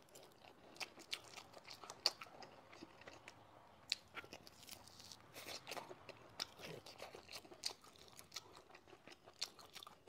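Close-miked eating: chewing and biting on a braised chicken drumstick, with wet mouth smacks and scattered sharp clicks, two louder ones about two and four seconds in.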